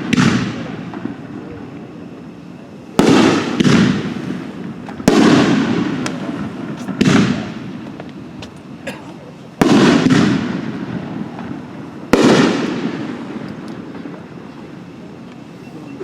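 Shells from a 3-inch, 9-shot Atomizer aerial fireworks cake bursting overhead: about seven heavy booms, a second or more apart, each echoing away, with a few faint crackles between them.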